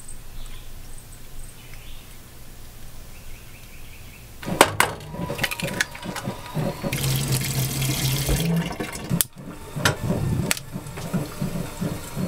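Breakfast cooking on a gas stove. At the start coffee is poured from a stovetop percolator into an enamel mug. About four and a half seconds in come sharp taps and clatter as an egg is cracked, then a burst of sizzling from the frying pan, and more knocks of pan and utensils near the end.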